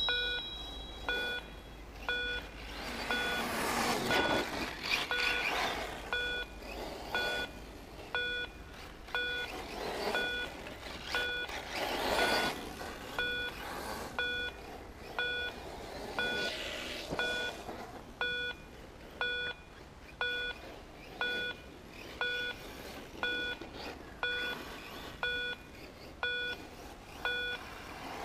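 A short electronic timing beep repeating about once a second. Over it an RC off-road buggy passes several times, each pass a rising and falling rush of motor and tyre noise.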